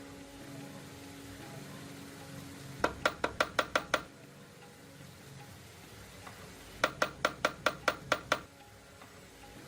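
Two quick runs of sharp, evenly spaced knocks, about six a second, one a few seconds in and another near the end, over a steady low hum.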